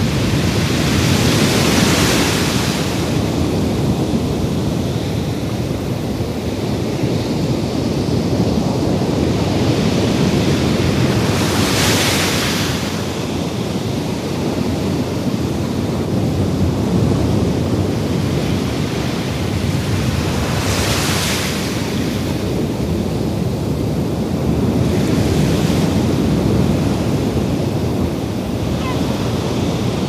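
Ocean surf: a continuous rush of waves washing onto the shore, swelling and easing as several waves break, the biggest surges about 2, 12 and 21 seconds in.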